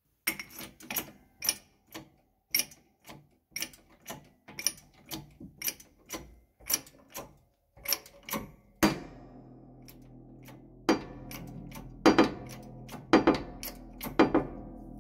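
Hammer blows on a steel valve-guide drift, driving a valve guide out of an aluminium motorcycle cylinder head. Sharp metallic strikes come about twice a second at first. From about nine seconds in a steady hum sets in, and a few louder blows land over it.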